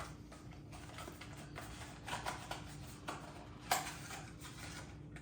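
Soft rustling and light taps of paper documents and packaging being handled during an unboxing, with one sharper tap about three and a half seconds in.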